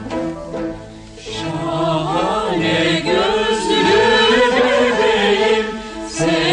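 Turkish classical choir singing a nihavent-makam şarkı with instrumental accompaniment, in an archival radio recording; the voices come in about a second in, after a short instrumental phrase.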